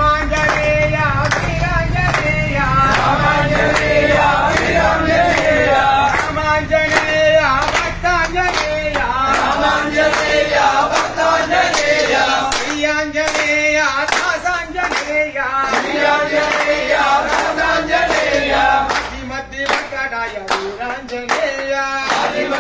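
A group of men singing an Ayyappa devotional song together, keeping time with rhythmic hand claps.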